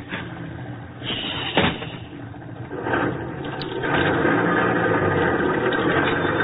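Radio-drama sound effect of a bus engine running, growing louder and then holding steady from about four seconds in, with a single knock about a second and a half in. The sound is narrow-band, as on an old broadcast recording.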